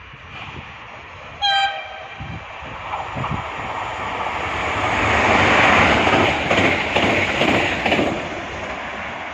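Train horn giving one short blast, then a train passing at speed, its noise building and then easing, with the wheels clattering over rail joints near its loudest.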